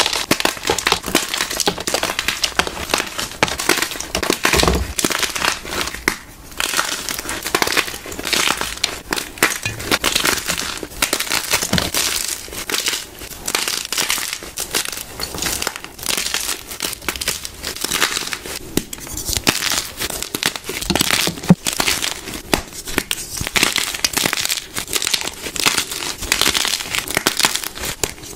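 White gym chalk blocks being crushed and crumbled in bare hands: a dense, continuous run of crunches and crackles as chunks snap and grind into powder, with one brief lull about six seconds in.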